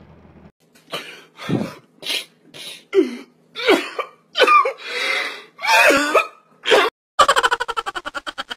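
A man sobbing loudly in uneven gasping bursts, ending in a fast stuttering run of sobs.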